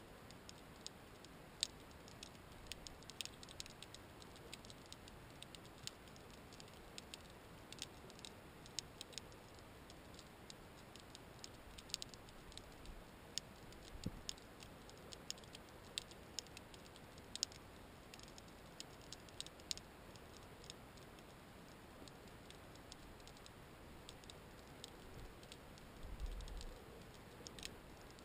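Underwater ambience of scattered, sharp, irregular clicks and crackles, several a second, over a faint hiss, with a brief low rumble near the end.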